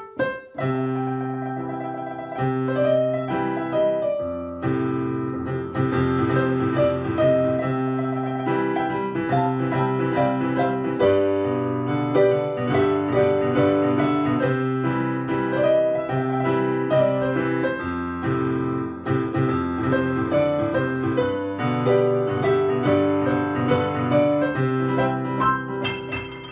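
Piano music: a flowing piece of held chords under a moving melody line, fading out at the end.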